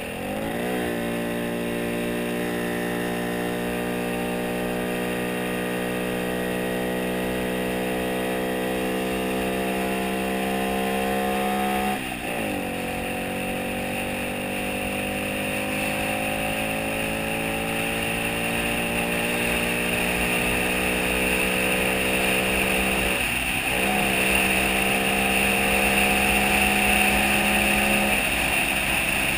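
Engine of the vehicle carrying the camera, pulling hard with its pitch rising quickly at the start and then slowly climbing. The pitch drops at a gear change about 12 s in and climbs again, with short throttle lifts around 23 s and 28 s. Steady wind and road hiss underneath.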